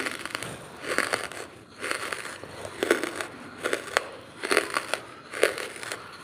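Dry charcoal being bitten and chewed close to the microphone: one brittle, crackly crunch after another, about one or two a second.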